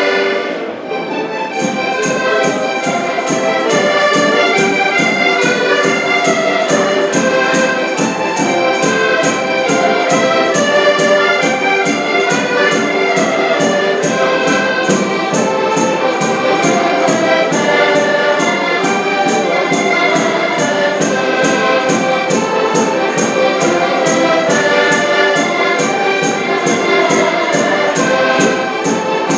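Five diatonic button accordions playing a lively Portuguese folk tune together, with a drum keeping a steady beat that comes in about a second and a half in.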